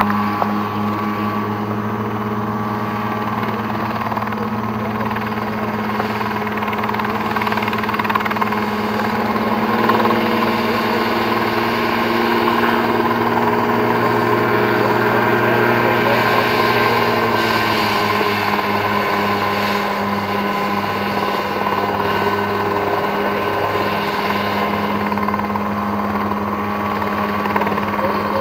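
Mosquito ultralight helicopter running, with a steady low drone of engine and rotor. It swells slightly in the middle and shifts a little in pitch near the end.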